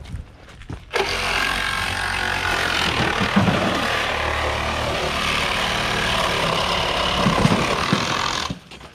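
A power tool cutting into a car body during vehicle extrication, running for about seven and a half seconds; it starts suddenly about a second in and cuts off abruptly near the end.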